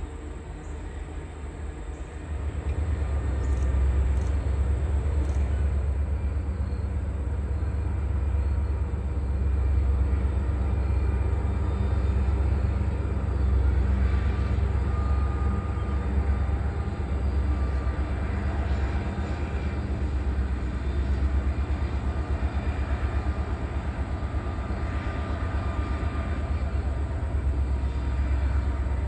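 Diesel locomotive of an excursion train running, a deep steady engine rumble that swells about two and a half seconds in and holds.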